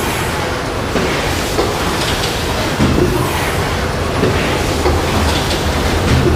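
SATE S700 rigid-box-making machine running through its cycle: a steady mechanical hum and rumble with clacks that repeat at an even pace.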